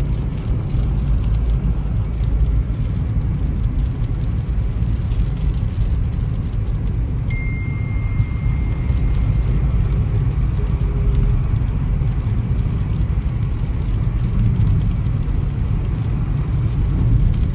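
Steady low rumble of a car's tyres and engine on a wet road, heard from inside the moving car.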